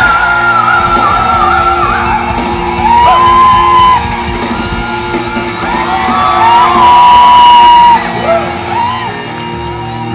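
Live pop-rock band music through a concert PA, loud, with guitar. A high lead line wavers and then holds two long high notes, the second one near the end, before the music drops back.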